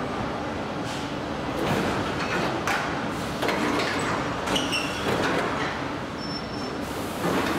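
Car assembly-line noise heard from inside a bare metal van body shell: a steady machinery rumble broken by several short bursts of clatter and hiss, with brief high whistles about halfway through.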